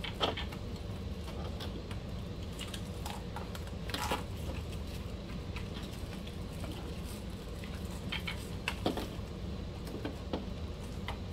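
Scattered light clicks and rattles of hands working a plastic RC car chassis and pulling its strap, over a steady low hum.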